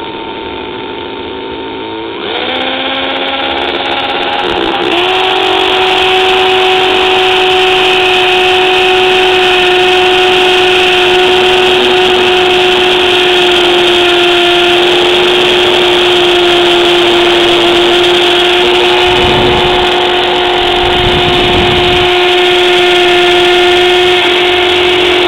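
Milwaukee 2611-24 cordless hammer drill running in hammer mode, a 1/4 inch hammer drill bit boring into reinforced concrete. A loud, steady hammering drone that gets louder about two seconds in and again about five seconds in as the drilling goes on.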